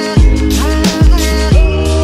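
Background music with a steady beat and deep bass hits.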